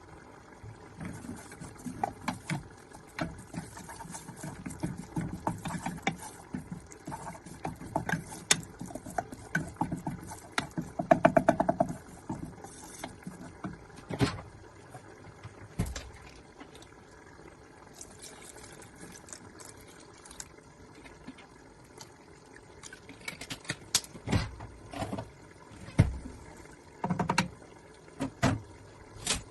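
Kitchen work sounds: scattered knocks and clinks of utensils against dishes and cookware, with a quick run of rapid stirring or scraping strokes about eleven seconds in.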